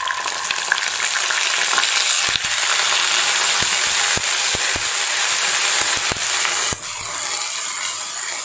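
Ginger-garlic paste thinned with water hitting hot oil and fried onions in a kadhai: loud, steady sizzling, with a wooden spatula knocking against the pan now and then as it is stirred. The sizzle drops a little about two-thirds of the way through.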